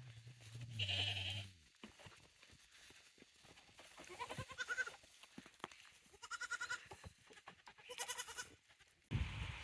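Goats bleating: a low bleat at the start, then three higher, wavering bleats about four, six and a half and eight seconds in, with scattered light knocks between them. A steady hiss comes in suddenly near the end.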